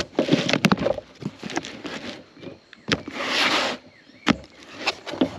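Cardboard box being opened: a box cutter slits the packing tape, then the tape is peeled and the flaps pulled open. Scattered clicks and scrapes, with a rasping tear lasting nearly a second about three seconds in.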